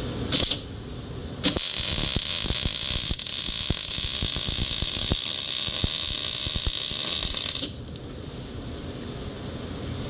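Wire-feed welder arc crackling and hissing as it lays one continuous bead on steel pipe for about six seconds, starting about a second and a half in and cutting off abruptly. A brief spurt of arc comes just after the start.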